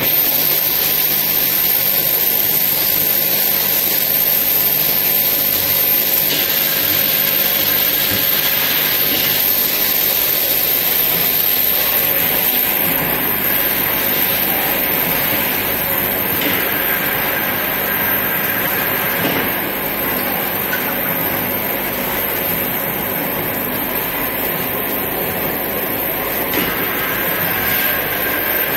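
Eye-drop bottle washing, filling and capping line running: a steady, even machine noise with a thin high whine above it.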